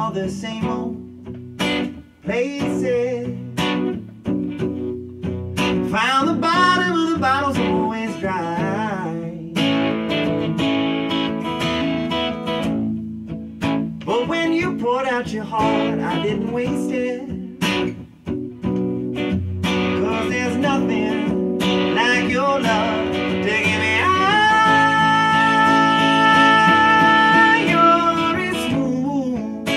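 Man singing to his own strummed acoustic guitar, the voice wavering and sliding between notes, then holding one long note near the end.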